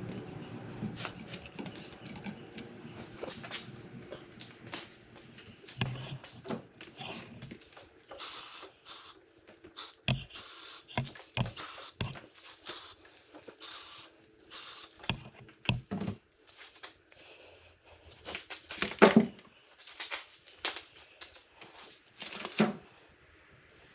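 Powder coat gun spraying in short, irregular puffs of air, each a brief hiss, with occasional clicks and knocks in between.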